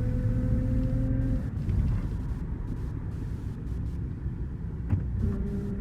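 Mahindra Bolero diesel driving with a steady low rumble, a faint whine rising slightly in the first second and a half and again near the end. It runs without the knock and misfire it had before its injectors were replaced and coded.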